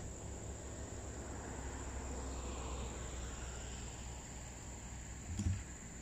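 Insects calling in one steady high-pitched note over a low rumble, with a brief low thump about five and a half seconds in.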